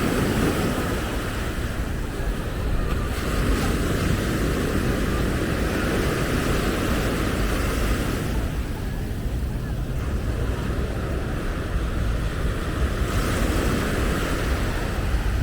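Surf breaking and washing up the beach, its hiss swelling and fading every few seconds, with a steady low rumble of wind on the microphone.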